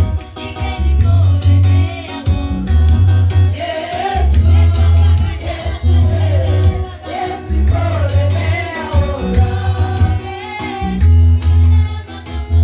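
Gospel music with singing over a heavy, rhythmic bass beat.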